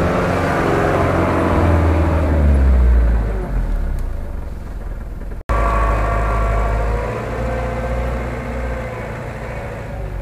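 Toyota Land Cruiser engine running under load as it drives over rough ground, its pitch rising and falling. The sound breaks off for an instant about five and a half seconds in, then fades as the truck pulls away near the end.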